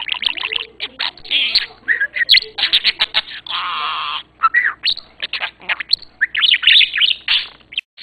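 Budgie chattering and warbling close up: a fast, unbroken run of chirps, clicks and squawky notes, with a buzzy held note about halfway through.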